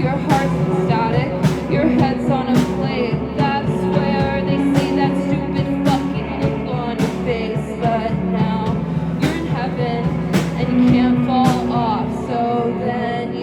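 Live rock band playing a song: drums with regular hits over sustained amplified guitar and bass, with sliding, wavering pitched lines in the middle range.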